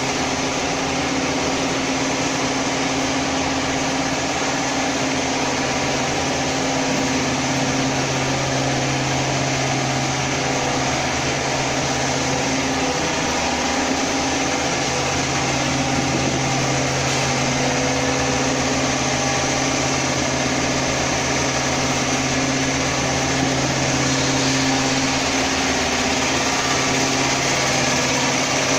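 Vacuum frying machine running with a steady mechanical hum, a low drone under an even noise.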